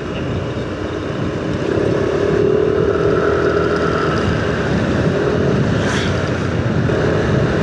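Steady engine and road noise heard while riding a motorcycle in traffic. A humming vehicle tone comes in about one and a half seconds in, fades, then returns twice briefly.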